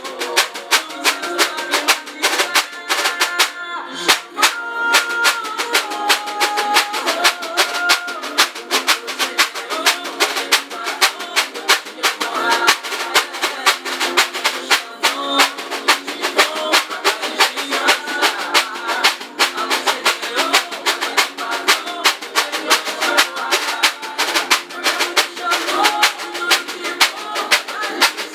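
A reco-reco scraper played in a fast, steady rhythm along with a sung pagode song.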